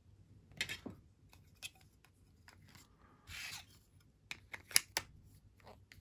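Scattered light clicks, a short rustle about three and a half seconds in, and a cluster of sharper clicks near the end: trading cards and hard plastic card cases being handled.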